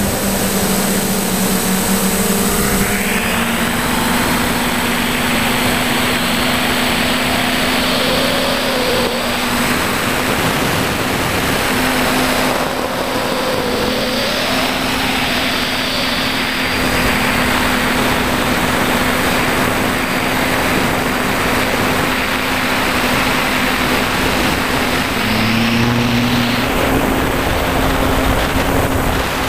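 Electric motors and propellers of a DJI Flamewheel multirotor drone running in flight, heard close up. A steady hum shifts up in pitch a few times as the motors change speed, under a constant rushing hiss.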